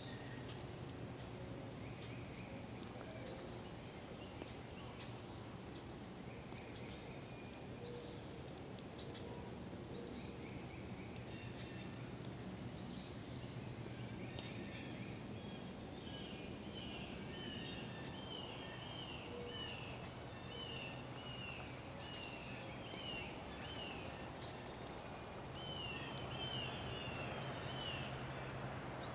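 Songbirds singing in woodland, one repeating the same quick chirped phrase over and over through the second half, with a few faint pops from a campfire and a low steady hum underneath.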